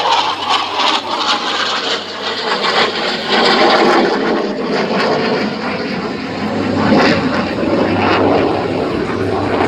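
AIDC F-CK-1 Ching-kuo (IDF) fighter's twin afterburning turbofan engines during a high-speed display pass: a loud, continuous jet roar with a crackling edge, swelling and easing slightly.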